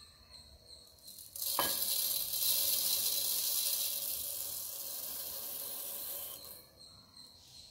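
Dry urad dal lentils poured from a glass measuring cup into a glass bowl: a steady hiss of grains streaming onto glass. It starts with a knock about a second and a half in and tapers off after about six seconds.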